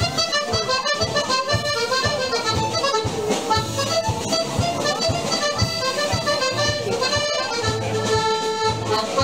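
Accordion dance music with a melody over a steady, even beat.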